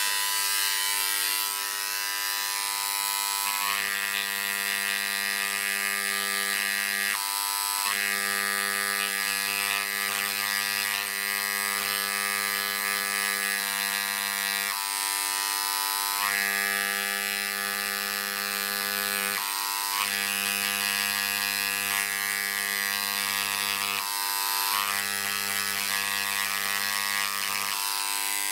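Dremel Engraver 290-3 electric engraver buzzing steadily, its tip hammering at 6000 strokes a minute as it engraves pencilled lines into a wooden board. Its tone deepens and lightens every few seconds.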